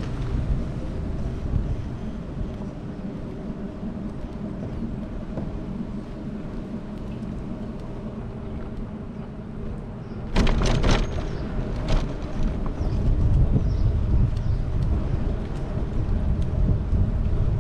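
Wind buffeting the microphone over the steady road rumble of a moving vehicle. A cluster of sharp knocks comes about ten seconds in, and the low rumble is louder after them.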